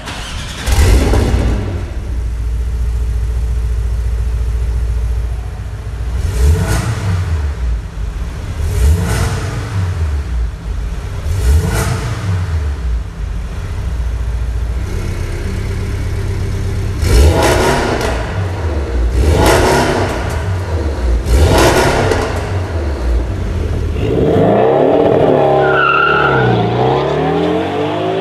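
Porsche 718 Cayman with an Fi valved aftermarket exhaust, a loud flare about a second in, then idling, then revved in about six sharp blips that rise and fall in pitch. Near the end it accelerates away, the pitch sweeping up and down.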